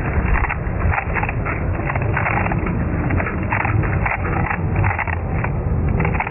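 A 3x3 speed cube being turned rapidly one-handed: quick irregular runs of plastic clicks and clacks, over a steady low rumble of background noise.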